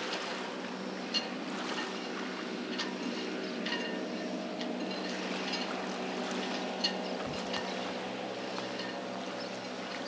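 Harbour water ambience: small splashes and lapping of water around dock pilings and moored boats. Under it runs a steady low motor drone.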